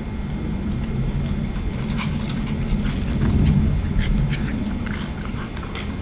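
Puppies playing, with short yips and scuffling sounds scattered over a steady low rumble that swells briefly about three seconds in.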